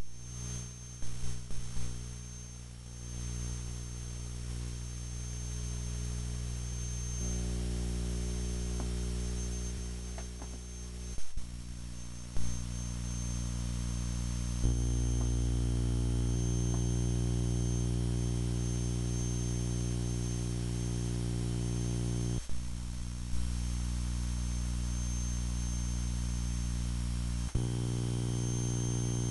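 Steady low droning hum with many overtones and a thin high whine above it. Its mix changes abruptly a few times, and a few clicks sound near the start and around the middle.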